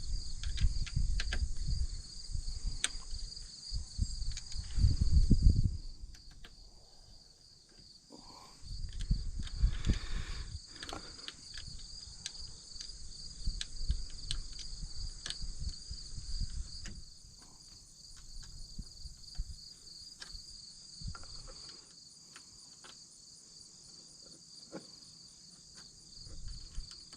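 Insects chirping in a steady pulsing chorus, like crickets, with scattered sharp clicks and knocks and low rumbling bumps mostly in the first ten or so seconds.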